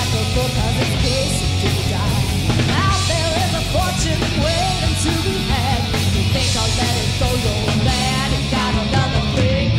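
Live hard-rock band playing: a woman belting the lead vocal over loud distorted electric guitars, bass and drums.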